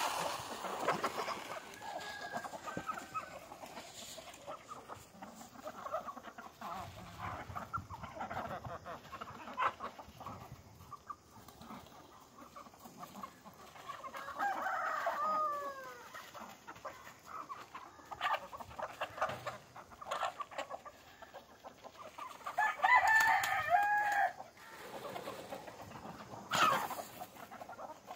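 Farmyard chickens clucking while they and geese peck grain off a paper sack, with many small pecking clicks. A louder, longer call comes about halfway through and another a few seconds before the end.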